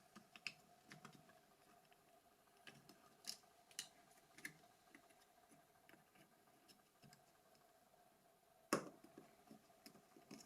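Faint, scattered clicks and taps of small plastic phone parts being handled and fitted together, with one sharper tap near the end, over a faint steady hum.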